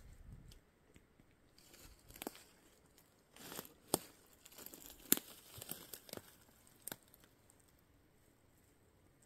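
Dry leaf litter and twigs crunching and crackling underfoot, with about five sharp snaps over the first seven seconds, the loudest about five seconds in.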